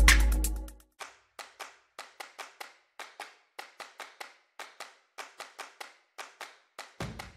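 Sparse, irregular handclaps, roughly four or five a second with a few short gaps, fairly faint. Intro music fades out at the start and music starts up again near the end.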